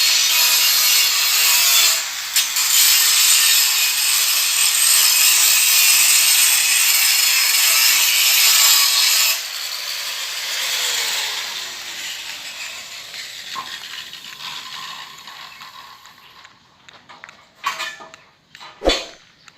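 A grinder grinding down welds, a loud steady hiss of the disc on metal. About nine seconds in, the grinding stops and the disc spins down with a falling pitch, fading over several seconds. It is followed near the end by a few sharp metallic knocks.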